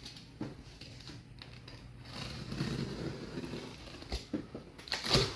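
Utility knife blade slicing along the packing tape of a cardboard box: a scraping hiss, strongest in the middle, with a few clicks and knocks as the box is handled.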